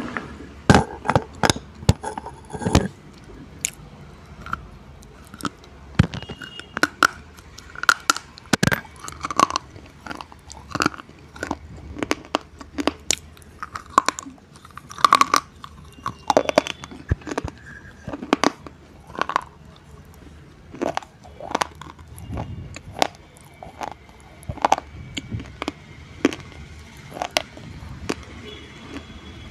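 Slate pencils bitten and chewed close to the microphone: a dense, irregular run of sharp crunches and snaps, several a second, with short pauses between bites.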